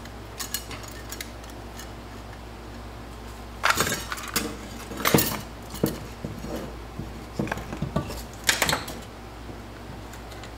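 Metal clinks and clanks of TH350 automatic transmission internals, clutch drums and gears, being pulled from the case and set down on a steel bench. The loudest clanks come about four, five and eight and a half seconds in.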